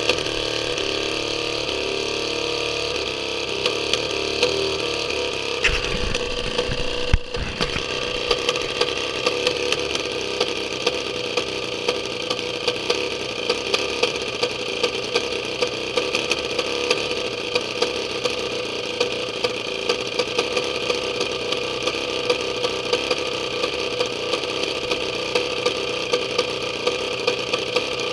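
Homemade 200cc inline-twin Husqvarna chainsaw engine idling steadily, with a regular sharp tick. There is a sharp knock and a brief stumble about seven seconds in.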